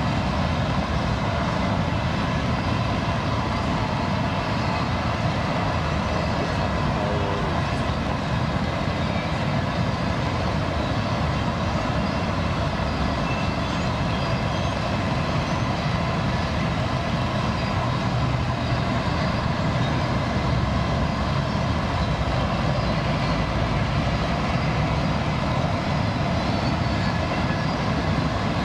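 Trailer-on-flatcar freight train rolling steadily past on the rails, an even rumble of wheels and cars with no breaks.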